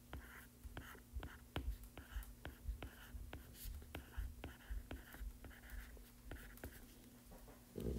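Stylus writing on a tablet's glass screen: a faint run of light taps, about three a second, with soft scratchy strokes in between as a word is handwritten.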